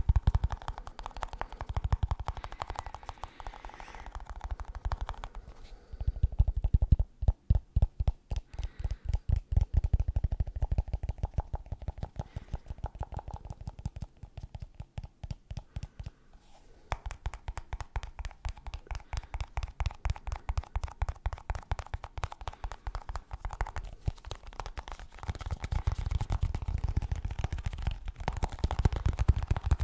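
Rapid fingertip tapping on a snus box, steady runs of many taps a second, louder and deeper about six seconds in and again from about twenty-five seconds.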